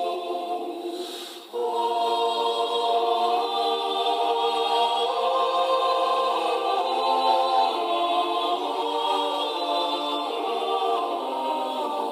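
Choir singing long, held chords, with a brief break about a second and a half in before the voices come back in full.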